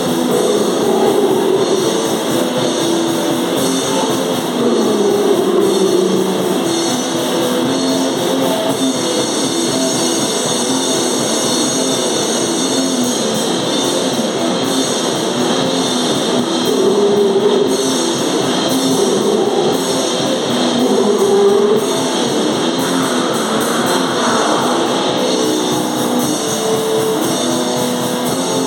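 A hardcore noise-metal band playing live and loud: distorted electric guitars and a drum kit in a dense, continuous wall of sound.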